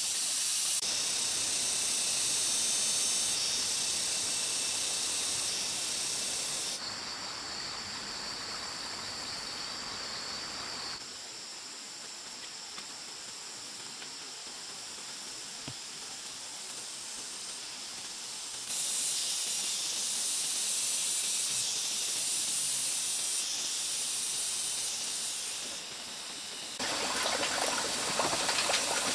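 Steady hiss of water running along a shallow earth ditch, with forest background noise, changing abruptly several times. Near the end, clicks and rustling as dry sticks are handled at a stone stove.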